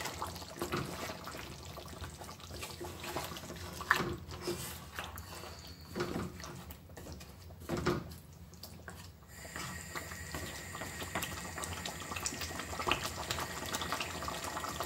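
A wooden spatula stirs a simmering lamb and potato curry in an aluminium pot, the thick sauce sloshing and bubbling. The spatula knocks against the pot a few times.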